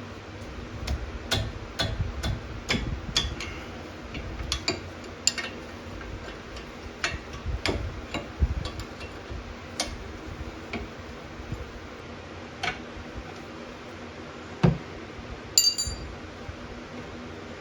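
Irregular metallic clicks, taps and clinks of hand tools and brake parts being handled during a brake teardown, with a duller knock and then a brief ringing clink near the end.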